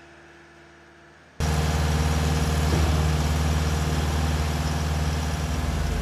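After a quiet first second or so, heavy diesel engines of a concrete mixer truck and pump start up suddenly and run loud and steady while concrete slides down the truck's chute into the pump hopper.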